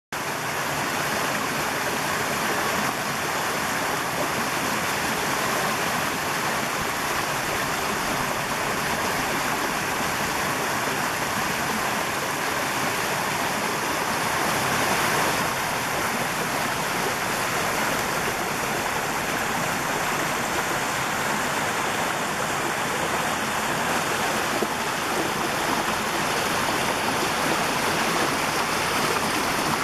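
Small stream spilling over a low rocky cascade: a steady rush of running water.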